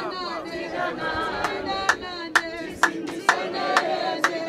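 A group of voices singing together unaccompanied, joined about a second and a half in by sharp rhythmic hand claps about twice a second.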